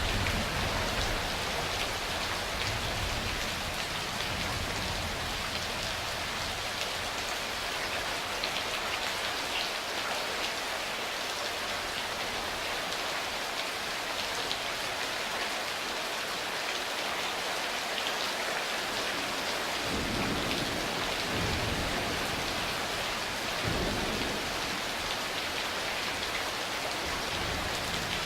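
Steady rain falling hard, with low rolls of distant thunder rumbling at the start and twice more about three-quarters of the way through.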